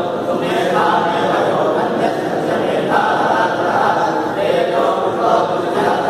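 Group of Hindu priests chanting together in unison, many men's voices blended into one steady drone of recitation that moves on to a new line every couple of seconds.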